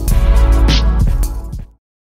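Background music with a heavy bass and a steady beat, which dies away quickly and cuts off into silence shortly before the end.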